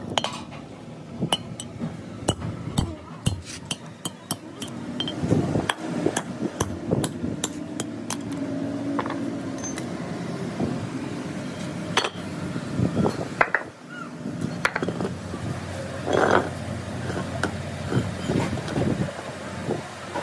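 Irregular metal-on-metal hammer blows driving the valve guides out of a truck cylinder head, with the steel guides clinking as they drop onto the concrete floor.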